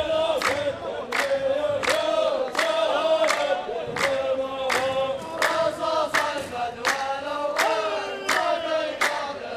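A line of men chanting in unison, with steady hand claps about two a second. This is the chorus row of a Saudi muhawara (sung poetry duel) taking up the poet's verse.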